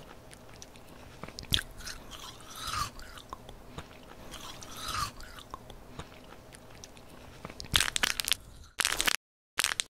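Soft close-up chewing and crunching with scattered small clicks. About eight seconds in come loud crinkling bursts of an ice cream bar wrapper being torn open, twice, with a sharp cut to silence between.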